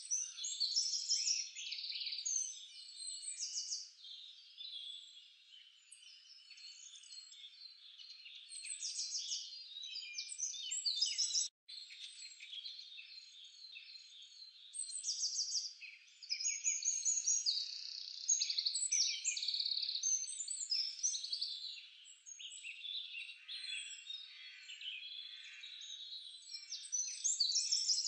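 Small birds chirping and trilling in a busy, overlapping chorus, the sound cutting out briefly a little before halfway.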